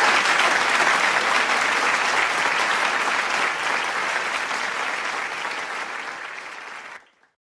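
Large crowd clapping and cheering, the applause slowly dying down over the last few seconds and then cutting off suddenly near the end.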